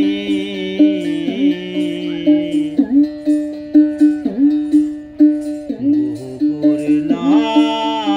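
Background music led by a plucked string instrument, with a held drone note underneath and a wavering high melody line.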